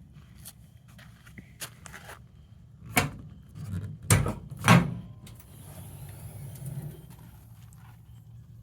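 Truck-bed toolbox being handled: light clicks from its latches and handles, then a sharp knock and two heavier clunks of the lid about 3 to 5 seconds in, followed by softer rubbing and handling noise.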